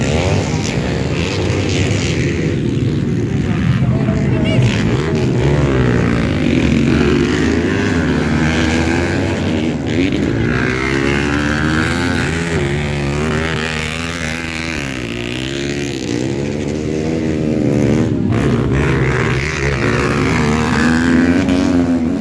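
Several 250cc four-stroke motocross bikes racing on a dirt track, their engines overlapping and revving up and down as the riders work the throttle.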